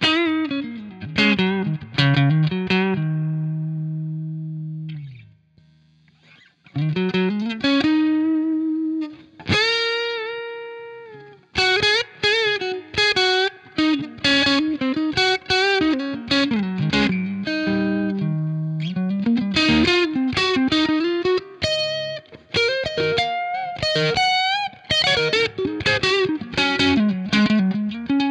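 Electric guitar music: an overdriven lead guitar playing a melody of sustained notes, string bends and vibrato, with a short pause about five seconds in and quicker note runs after.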